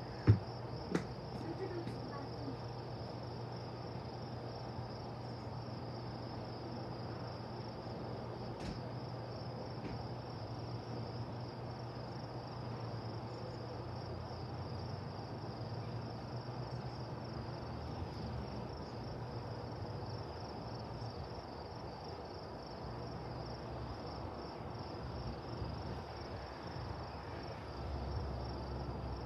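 Steady high-pitched chirping chorus of insects, with a low steady hum underneath; a single sharp knock right at the start.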